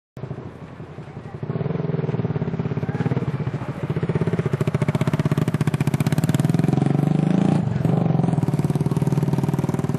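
Motorcycle engine running close by with a fast, even pulsing; it gets louder about a second and a half in and then holds steady.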